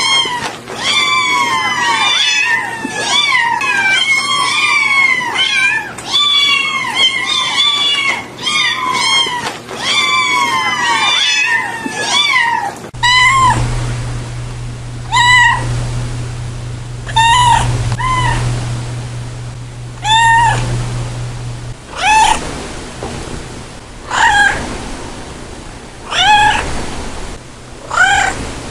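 Cat meowing: a fast run of high, overlapping meows for the first half, then, after an abrupt change, single meows about every two seconds. A low steady hum sits under the meows from about the middle for some nine seconds.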